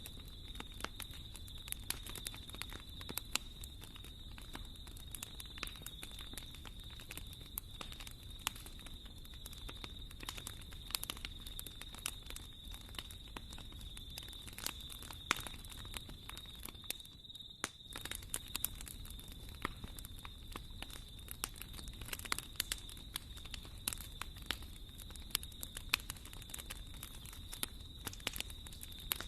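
Wood fire burning in a fireplace, crackling with many irregular sharp pops over a low rumble of flames. A faint steady high tone sits underneath, and the sound dips briefly about seventeen seconds in.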